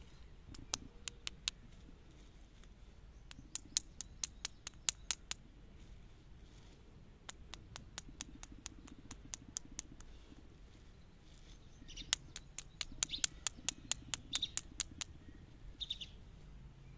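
Candy lollipops on plastic sticks being handled, giving quick sharp clicks and taps in bursts of several a second, with a few pauses between bursts.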